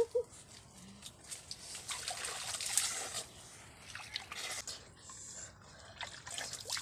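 Hands splashing and swishing in shallow water, scooping and rinsing, with irregular small splashes and trickles, busiest a couple of seconds in. Two short pitched chirps sound right at the start.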